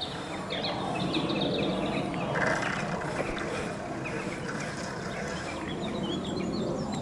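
Small birds chirping and singing over a steady rushing background noise, which cuts off abruptly at the end.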